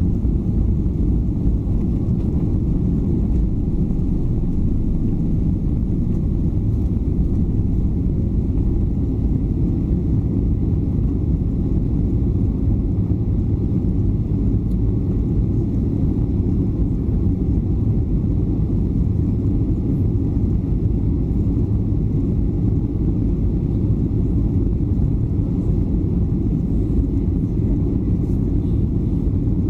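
Cabin noise of a Boeing 737-800 at takeoff thrust, heard from a seat over the wing: the steady low rumble of its CFM56-7B engines and the airflow as the aircraft leaves the runway and climbs.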